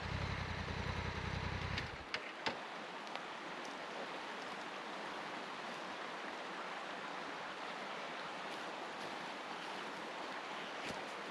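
A Honda Africa Twin's parallel-twin engine idling, then shut off about two seconds in, followed by a few sharp clicks. After that, a creek running over rocks, a steady rushing hiss.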